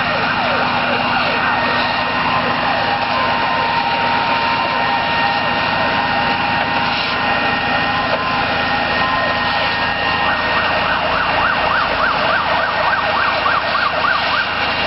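Fire engine sirens sounding over the steady running of truck engines, with repeated falling sweeps that switch to a fast up-and-down yelp, about four cycles a second, some ten seconds in.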